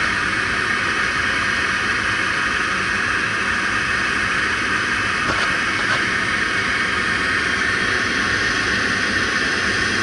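Rheem rooftop gas unit's inducer draft motor running steadily, a constant airy rush with no change in level, as the unit stands ready for an ignition attempt.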